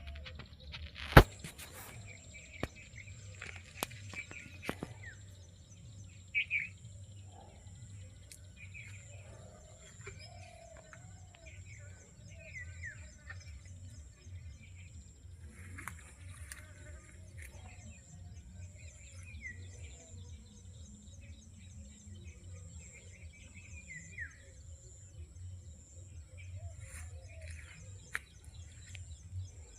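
Birds chirping and calling on and off over a steady high-pitched whine and a low rumble, with a sharp click about a second in.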